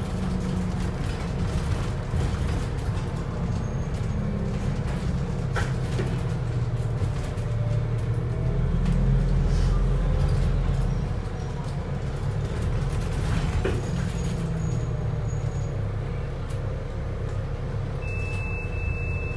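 Wright New Routemaster hybrid bus running on its diesel engine alone, heard inside the cabin: a low, steady engine drone with road noise that grows louder around the middle and then eases. A couple of brief rattles are heard, one about a third of the way in and one about two-thirds of the way in.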